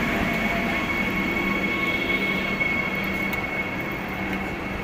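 Vande Bharat Express electric trainset moving along the platform: a steady rumbling running noise with a thin high whine over a low hum, easing off slightly near the end.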